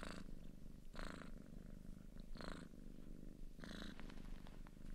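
Cat purring close to the microphone while a kitten nurses at an adult cat's belly: a steady low purr that swells louder about once a second.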